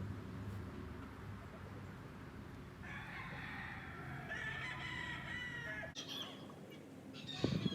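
A rooster crowing: one long wavering crow starting about three seconds in and lasting about three seconds. A louder burst of rustling and knocking comes near the end.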